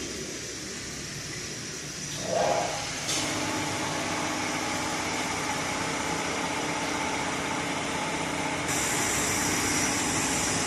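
Vacuum oil changer drawing engine oil out: a steady machine hum with hiss that steps up about three seconds in, after a brief louder sound, and turns brighter near the end.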